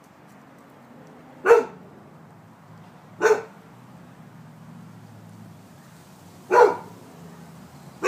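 Rhodesian Ridgeback barking single, separate barks spaced one to three seconds apart: three barks, with a fourth at the very end.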